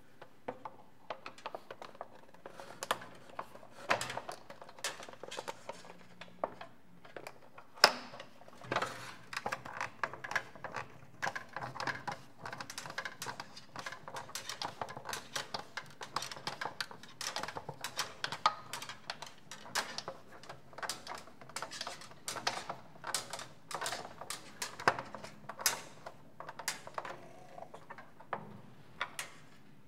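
Screwdriver work on the clear plastic housing of a wind-up radio: irregular small clicks and taps of the tool, plastic parts and screws against a steel bench, with one sharper knock about eight seconds in.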